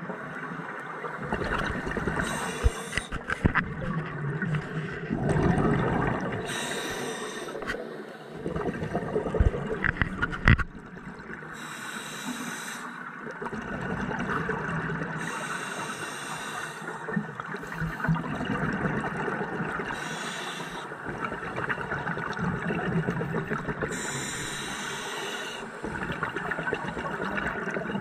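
Scuba diver breathing through a regulator underwater: a hiss on each breath and a rush of exhaled bubbles, coming back every four seconds or so. Several sharp clicks about a third of the way in.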